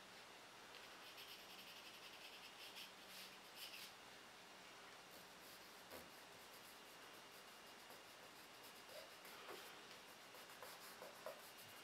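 Faint scratching of a pencil shading on sketchpad paper in quick, loose strokes for the first few seconds, then softer rubbing as a fingertip smudges the graphite.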